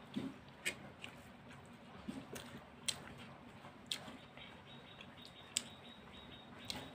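Quiet sounds of eating rice with the hands: fingers squishing and mixing rice on plates, and chewing, with about half a dozen scattered soft clicks.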